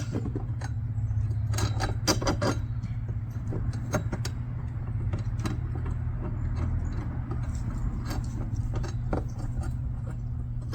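Metal hardware of a basketball goal clinking and tapping as bolts and parts are handled: scattered light clicks, a cluster of them about two seconds in, over a steady low hum.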